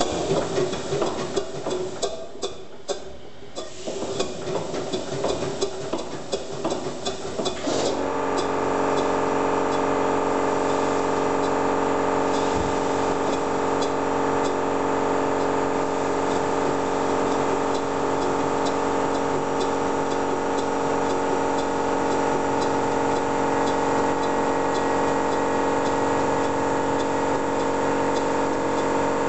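Tangye vertical steam engine running on compressed air. For the first several seconds its exhaust puffs in an uneven rhythm. About a third of the way in, the sound settles into a steady, even drone at a constant pitch.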